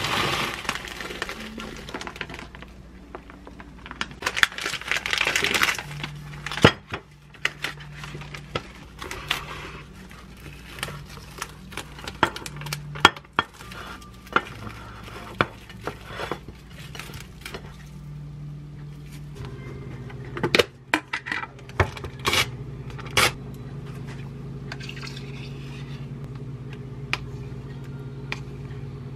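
Kitchen prep sounds: water running over frozen blueberries in a metal sieve, then scattered clinks and knocks of dishes and utensils and the crinkle of plastic wrap. About two-thirds of the way through, a steady low hum sets in and runs on under the clicks.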